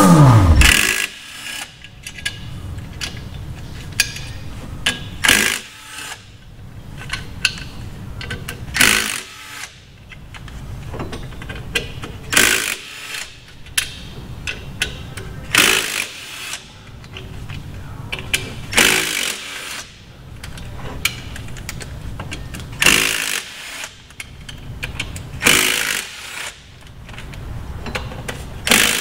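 A falling whoosh right at the start. Then a handheld power tool runs in short bursts about a dozen times, undoing the bolts that hold the clutch pack to an Audi R8's flywheel.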